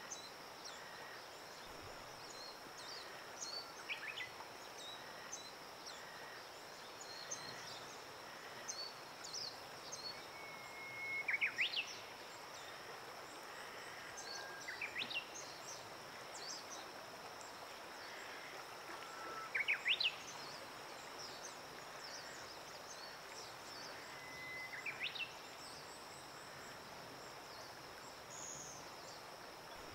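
Birds singing over a steady high-pitched drone. One songbird repeats the same phrase four times, each a held whistle that breaks into a quick run of rising notes, while other birds give scattered short high chirps.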